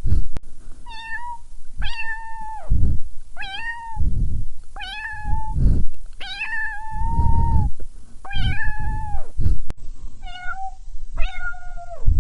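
A cat meowing over and over, about eight high-pitched meows spaced a second or so apart, with low rumbling noise underneath.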